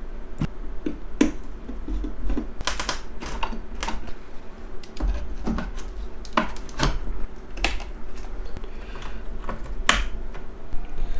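Irregular clicks and knocks of PC hardware being handled on a wooden test bench: a graphics card set into its motherboard slot and power cable plugs pushed into their sockets.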